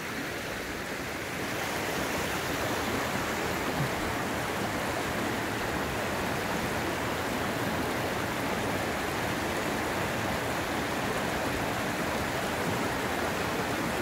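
Shallow mountain stream rushing over rocks and boulders, a steady rush of water that grows slightly louder about a second and a half in.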